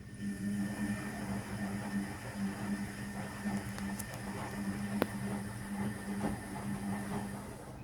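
Electrolux EW1057F washing machine's motor turning the drum during the main wash: a steady, pulsing hum that starts abruptly and stops after about eight seconds, with one sharp click about five seconds in.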